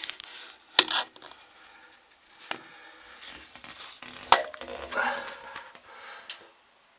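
Handling noise from a camera being worked around inside a centrifugal gold concentrator's bowl: rubbing and scraping with a few sharp knocks, the loudest about a second in and just past four seconds.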